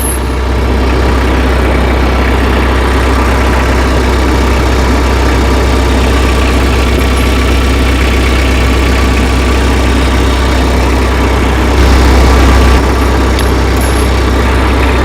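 Tractor engine idling steadily, briefly louder for about a second near the end.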